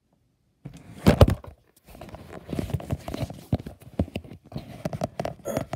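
A camera falling over with a loud knock about a second in, followed by a run of clicks, bumps and rustling as it is handled and set back up.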